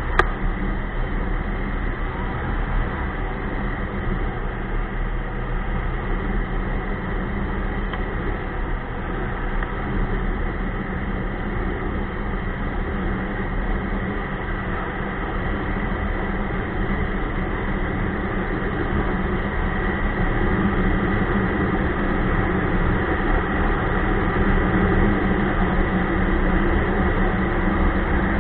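Ski-Doo Expedition LE snowmobile running steadily under way, a continuous engine drone mixed with a noisy rush, growing a little louder in the second half.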